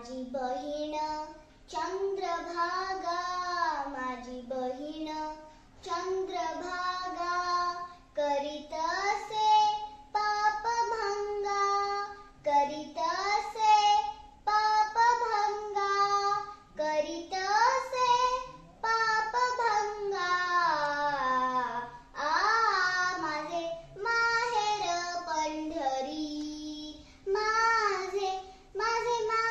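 Young girl singing a Marathi bhajan unaccompanied by instruments, in gliding phrases of a few seconds with short breaths between, over a faint steady low tone.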